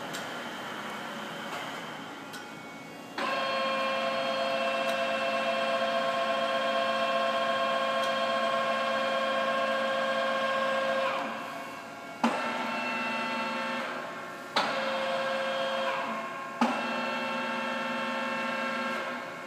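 Electric feed motor of a Poreba TCG 160/12 lathe's power quill running with a steady whine. It starts suddenly about three seconds in, runs down near eleven seconds, then is switched on and off again a few times, each restart with a sharp click.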